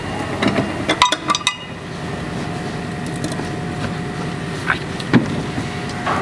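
A steady mechanical hum, with a quick cluster of clicks and knocks about a second in and two more knocks near the end, like tools or parts being handled.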